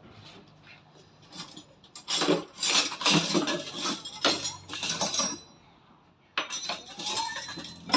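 Metal hand tools clinking and clattering in irregular bursts, in two stretches with a short lull between.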